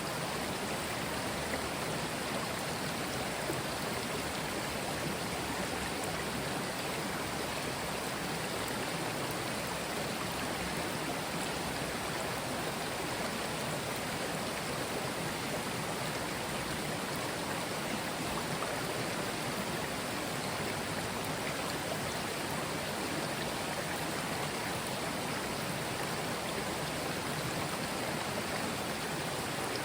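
Mountain stream flowing over stones: a steady, even rush of water.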